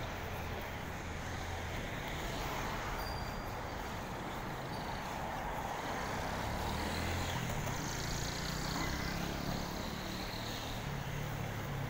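City street traffic: a steady hiss of road noise with the low running of passing vehicle engines, one engine tone climbing in pitch over the last few seconds.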